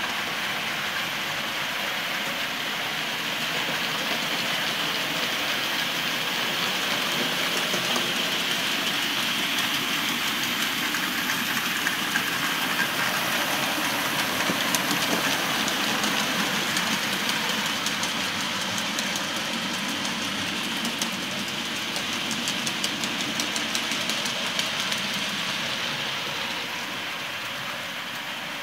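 Hornby OO gauge model steam locomotives and coaches running on the layout's track: a steady whir and rumble of motors and wheels, with rapid clicking of wheels over rail joints through the middle stretch.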